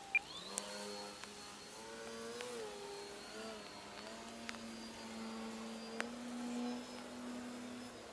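Edge 540T radio-controlled aerobatic model plane flying, its motor and propeller making a steady pitched drone. The pitch rises about half a second in as the throttle opens, then wavers as the plane manoeuvres.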